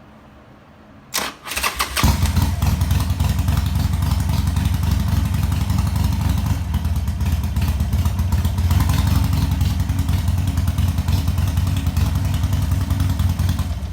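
2005 Harley-Davidson Sportster XL1200's air-cooled V-twin cranked by the starter for under a second, then catching and running steadily until it is shut off at the end. It is started to test a newly replaced choke (enricher) cable, and the choke works.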